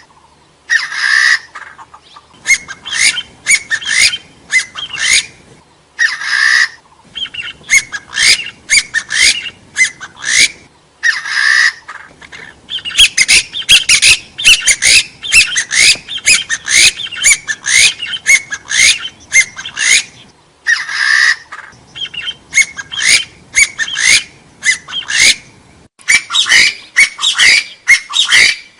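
Hill partridge calling: runs of short rising whistled notes, several a second, broken every few seconds by a longer, harsher call.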